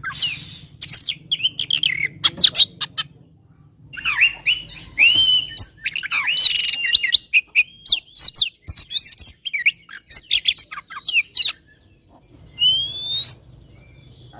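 Oriental magpie-robin (kacer) singing its agitated fighting song: a fast, varied run of whistles, chirps and harsh notes, broken by short pauses about three and twelve seconds in, with a rising whistle near the end.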